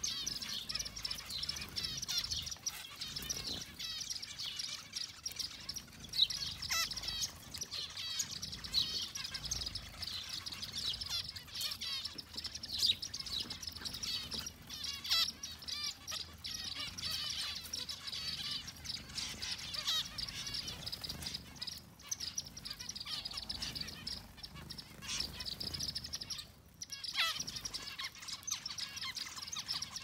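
A flock of zebra finches, most of them white, chirping continuously in a dense chatter of short, high calls. About four seconds before the end, one longer call slides downward in pitch.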